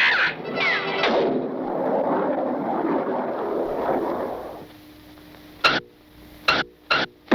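Cartoon sound effects on an old film soundtrack: a long rumbling roar with a short falling whistle about half a second in, then, after it dies away, three sharp cracks in the last two seconds over a low hum.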